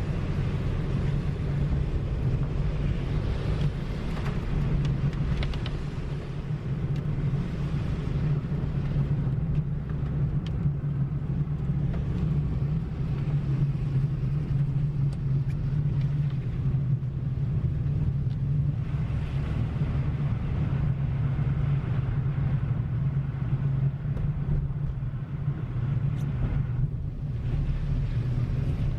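Car being driven at a steady pace: a steady low engine drone with road noise.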